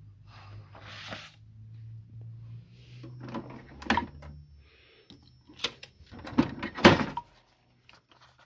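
Printer running with a steady low motor hum and rushing paper-feed noises as a printed sheet comes out, stopping about four and a half seconds in. Then a few sharp clunks and paper rustles as the sheet is handled, the loudest near the end, followed by quiet.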